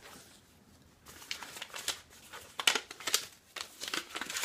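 Packaging crinkling and rustling in irregular bursts as it is handled, starting about a second in.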